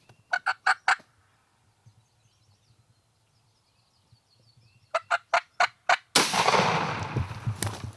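Wild turkey gobbler gobbling twice, each a quick rattling gobble, then about six seconds in a shotgun blast, the loudest sound, trailing off slowly.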